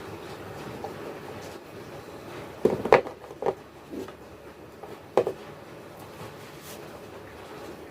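Crunchy edible clay being bitten and chewed close to the microphone: a handful of sharp crunches, the loudest a cluster about three seconds in, then single crunches around three and a half, four and five seconds in.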